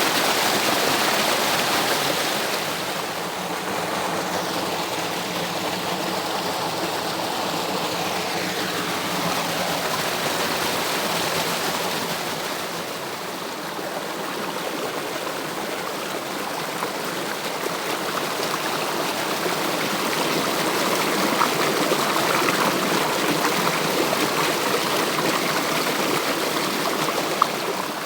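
Water of a stream rushing steadily over small cascades, with a brief click near the end.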